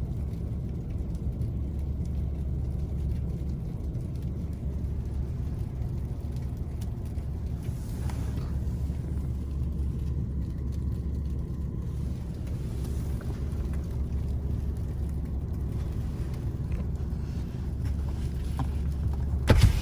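Steady low rumble of a car engine running, with a single sharp knock near the end.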